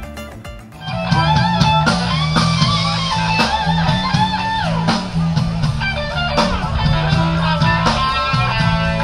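Background music led by a guitar playing bending melody notes over a steady bass line, starting in full about a second in after a brief quieter moment.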